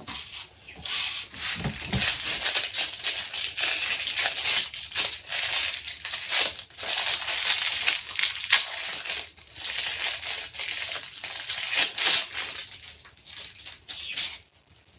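Thin plastic wrapper crinkling and tearing as a disposable plastic spoon is unwrapped by hand: a dense, continuous crackle that stops sharply just before the end. A couple of low knocks come about two seconds in.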